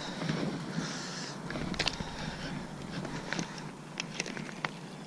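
Scattered, irregular sharp clicks and ticks from a baitcasting rod and reel being handled and reeled, over a low background hiss.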